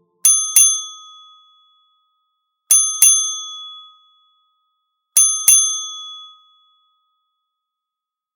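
A small bell rung twice in quick succession, three times over, each clear metallic ring fading out within about a second.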